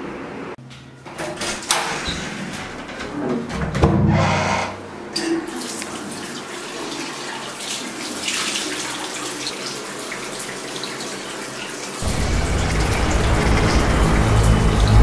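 Tap water running into a bathroom sink as someone washes at it, after a few knocks and a thump. About twelve seconds in, a low steady rumbling drone comes in.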